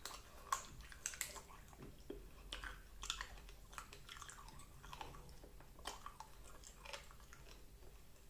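Close-up chewing and crunching of cooked bones in the mouth, with irregular sharp crackles as the bone gives.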